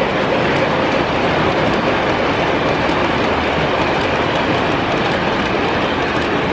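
Model train of passenger cars rolling past on the layout track: a steady running rumble with faint fine clicking of the wheels.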